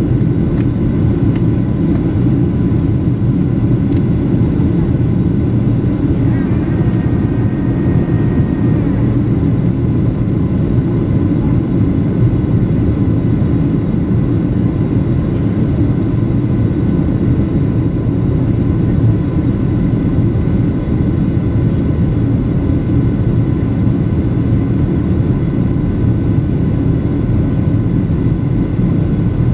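Cabin noise inside a Boeing 737-900 airliner in flight: a steady rush of airflow with the drone of its CFM56-7B engines and a few thin, steady whining tones above it.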